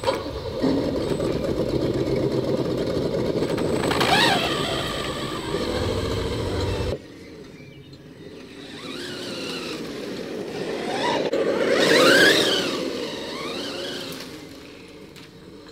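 Battery-powered 1/8-scale RC monster truck driving over grass, its drive whining up and down in pitch with the throttle. The sound drops suddenly about seven seconds in, then swells again with a burst of throttle around twelve seconds.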